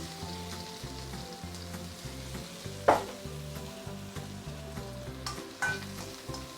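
Garlic and red onion sizzling in hot oil in a wok as they are stirred, with a single sharp knock about three seconds in and a smaller one later.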